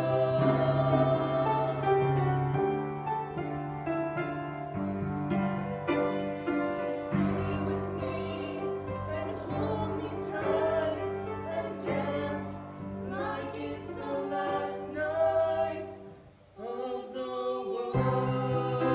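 A man and a woman singing a slow musical-theatre duet with sustained notes over an accompaniment of held chords. The music breaks off briefly near the end, then comes back in.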